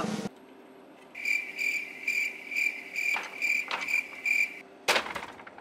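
Cricket chirping, about two chirps a second, starting about a second in and stopping shortly before a sharp click near the end. It is a comic 'crickets' sound effect for nothing happening.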